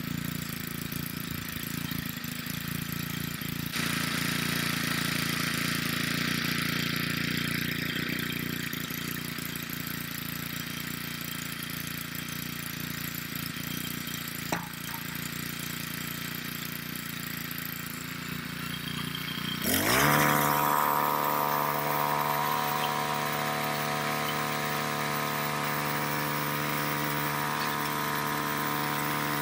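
Small gas-powered mini tiller engine running slowly, then revved up about two-thirds of the way in with a quick rising pitch, settling into a steady higher-speed run as its tines churn hard, compacted clay that they barely break up.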